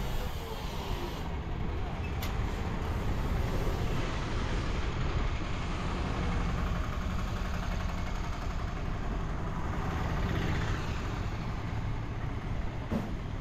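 Roadside street traffic: motor vehicles, tuk-tuks among them, running past with a steady low rumble.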